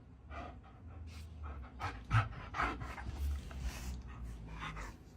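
A dog panting, quick short breaths about two or three a second.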